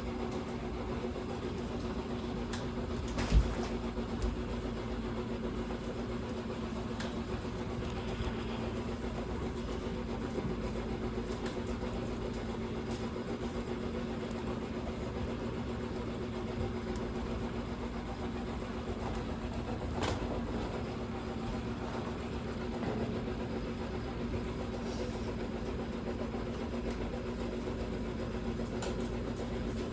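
Washing machine in its spin cycle, the drum spinning fast with a steady, even hum; a single sharp knock about three seconds in.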